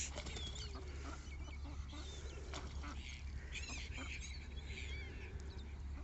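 Birds calling around a pond: ducks and geese give scattered low calls while small birds chirp with quick high notes, over a steady low hum.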